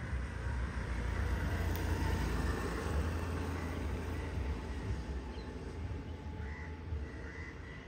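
Roadside street ambience: traffic noise with a motor scooter approaching, and a couple of crow caws near the end.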